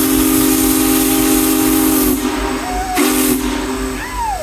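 Union Pacific 4014 "Big Boy" steam locomotive's chime whistle blowing a long blast of several low steady tones sounded together for about two seconds, then a short second blast, each with a rush of steam hiss.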